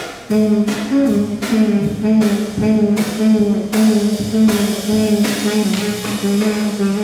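Free-improvised jazz: a trumpet holds a long low note over drum-kit and cymbal strokes that come about twice a second.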